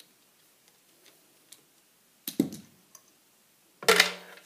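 Hand-tool handling sounds from a revolver being taken apart: faint small clicks of a screwdriver working a screw, a sharp knock about halfway through, and a louder knock near the end as a screwdriver is set down on the bench mat.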